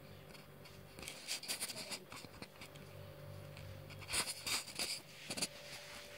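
Handling noise from a small camera being carried and set down on a tiled floor: rustling, scraping and clicks in clusters about a second in, around four seconds and once more near the end, over a steady low hum.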